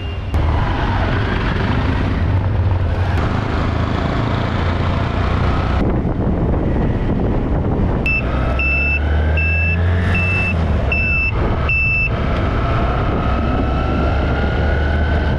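Hero Hunk single-cylinder motorcycle riding along, with the engine's hum under a heavy low rumble of wind and road noise and a faint whine that rises in pitch as it gathers speed. About eight seconds in, a run of about seven short, high electronic beeps sounds over roughly four seconds.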